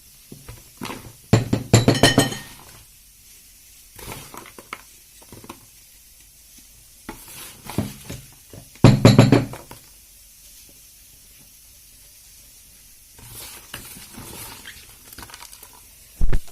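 Kitchen clatter of glass jars and utensils: two loud bouts of clinking and knocking with a ringing edge, about a second and a half in and again near nine seconds, smaller knocks between them, and a dull thud near the end.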